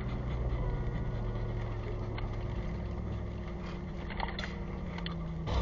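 Ram TRX pickup's supercharged V8 and tyres droning steadily, heard from inside the cab while driving, with a few faint clicks.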